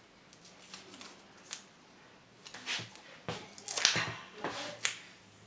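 Duct tape crackling in short, sharp rips as it is handled and wrapped around a curtain cord join, several times, loudest just before four seconds in.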